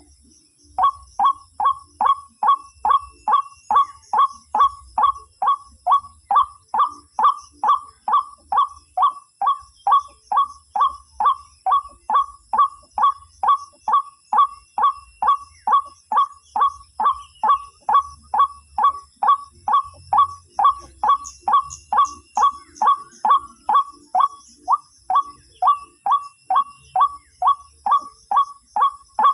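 White-breasted waterhen call, a loud note repeated about twice a second in a very even, unbroken series that starts about a second in.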